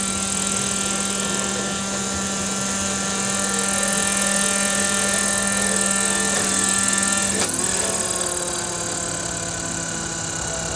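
Small fuel engine and rotors of a miniature radio-controlled helicopter running steadily with a high hiss. About seven and a half seconds in there is a sharp knock, and the engine note drops slightly after it.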